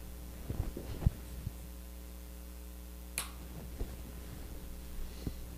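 Steady low electrical mains hum, with a few faint knocks and one sharp click about three seconds in.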